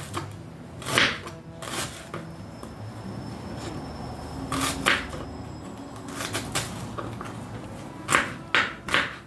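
Knife knocking on a chopping board as an onion is cut: single sharp strokes at uneven intervals, a few close together near the end.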